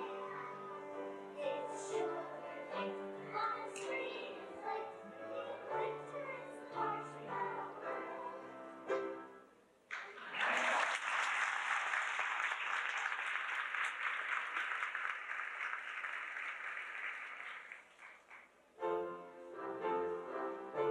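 Music plays for about nine seconds and stops. An audience then applauds for about eight seconds, the applause fades, and music starts again near the end.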